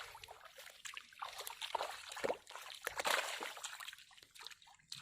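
Muddy pond water splashing and sloshing in irregular bursts, stirred by hands groping for fish in the shallows.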